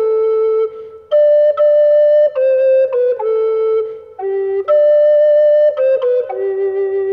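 A wooden recorder playing a solo melody of held notes, with short breaks for breath about a second in and again about four seconds in.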